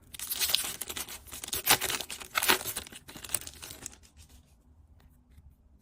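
A foil Pokémon card booster pack being torn open and its wrapper crinkled, for about the first three and a half seconds. After that there are only a few faint clicks.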